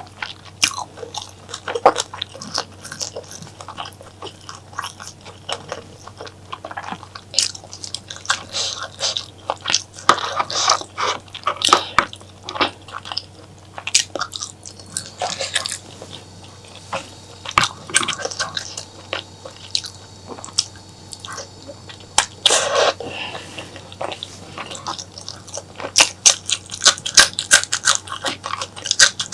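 Close-miked eating sounds: wet, irregular chewing, smacking and biting on spicy mutton curry and chewy honeycomb tripe, with louder bursts of bites now and then.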